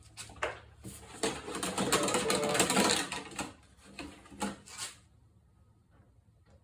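Wire coat hanger being pushed and worked through a drilled hole in a diesel heater's fuel tank, scraping and rattling in quick clicks. It dies down about five seconds in, leaving a few faint ticks.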